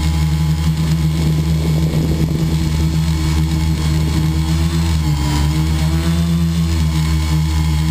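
Model aircraft's motor running steadily, heard from a camera on board the plane, its pitch shifting slightly about five seconds in.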